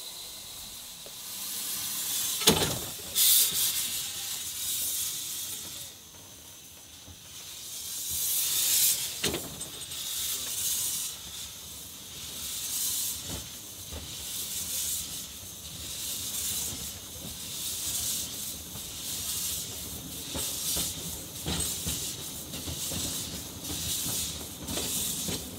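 Small narrow-gauge steam tank locomotive hissing steam, with a sharp knock about two seconds in. From about eight seconds in it moves off slowly, its exhaust chuffing at about one beat a second.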